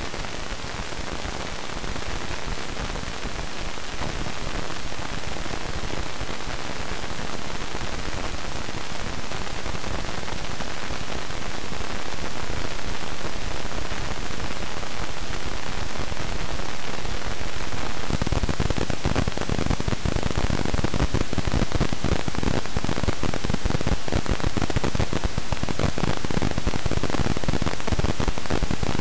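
Amplified noise from old East German silicon 'Miniplast' transistors: steady hiss broken by irregular pops as the current flips between levels (popcorn, or random telegraph, noise). About 18 s in it switches from one transistor to the next, whose noise is louder with dense low clicking pops.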